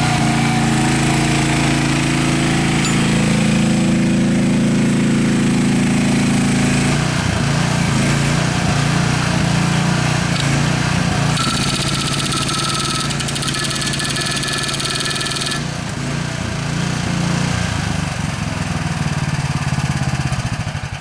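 The small gasoline engine of a GroundHog KH14G mini loader running hard under hydraulic load while its breaker attachment hammers at reinforced concrete. The engine note shifts about a third of the way in, a rapid high rattle from the breaker stands out in the middle, and the engine drops back in speed at the very end.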